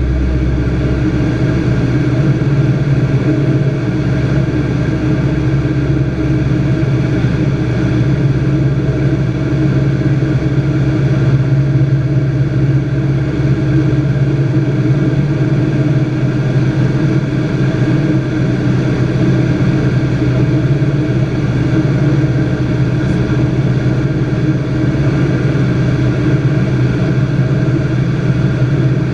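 Single-engine piston light aircraft (a Robin) running steadily: an even engine-and-propeller drone that holds one pitch throughout.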